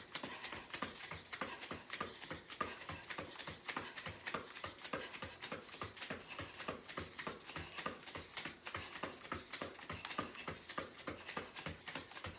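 Rapid, even footfalls of sprinting high knees on the floor, about three to four thuds a second.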